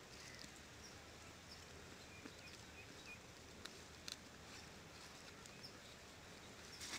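Near silence, with faint scattered bird chirps and a couple of brief soft clicks.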